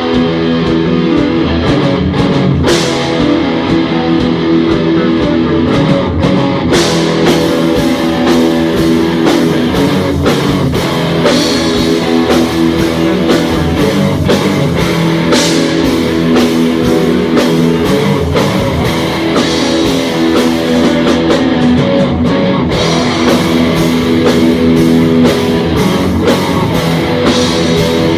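Heavy metal band playing live: electric guitars riffing over a drum kit in an instrumental stretch with no singing.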